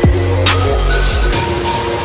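Electronic music with heavy bass notes that slide down in pitch and punchy drum hits.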